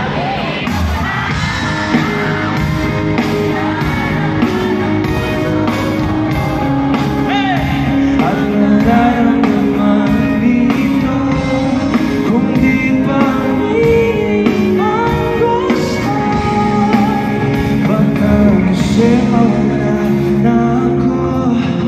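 Live pop band playing a song with singing, amplified over a large arena's sound system: guitar, drums and keyboards under the vocal line.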